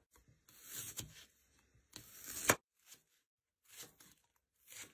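Kitchen knife slicing fresh ginger root and then scallion stalks on a cutting board: about four short, crisp tearing cuts, the loudest ending in a sharp knock of the blade on the board about halfway through.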